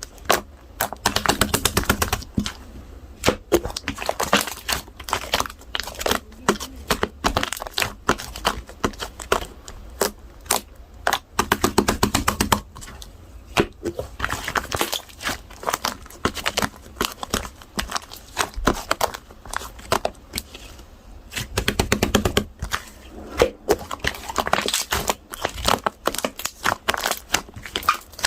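Close-up chewing of crisp food: clusters of sharp crackles and crunches in bouts of a second or two, with short quieter gaps between.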